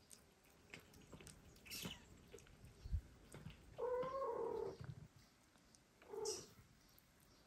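A cat meowing twice: a drawn-out meow about four seconds in and a short one about two seconds later, with faint soft taps and rustles between.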